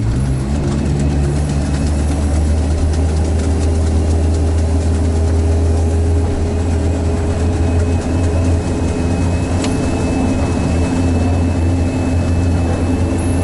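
Sherp all-terrain vehicle's diesel engine running steadily under way, a low even drone; a faint high whine comes in about two-thirds of the way through.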